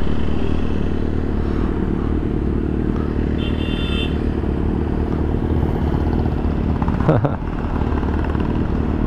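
Kawasaki ZX-6R's inline-four engine idling steadily at a standstill. A short high tone sounds about three and a half seconds in, and a brief sound rises and falls in pitch about seven seconds in.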